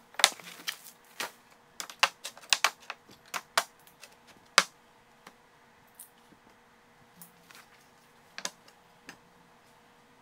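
Pieces of square steel tubing being set down one at a time on a workbench: a string of sharp knocks and clinks, closely spaced in the first few seconds, then a few scattered ones.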